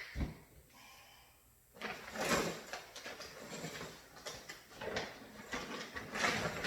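Handling sounds from plugging in and setting up a mirror photo booth: a sharp click at the start, then after a short lull a run of scraping, rubbing and light knocks.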